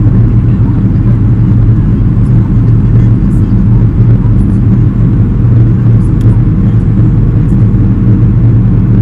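Steady, loud low rumble inside the cabin of a Boeing 737-500 on landing approach: the CFM56 turbofan engines and the airflow over the extended wing flaps, heard from a window seat over the wing, with a low hum running through it.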